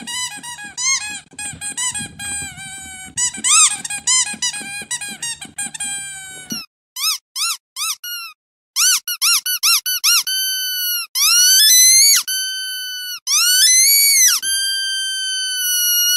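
Rubber squeaky dog toy squeezed over and over. It gives a fast run of short squeaks, then after a pause a few separate squeaks, then longer drawn-out squeals from about ten seconds in, the last one held steady.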